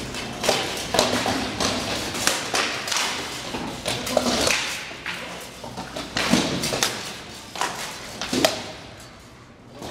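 Rattan swords striking shields and armour in armoured sparring: an irregular run of sharp cracks and thuds that echo in a large hall, thinning out near the end.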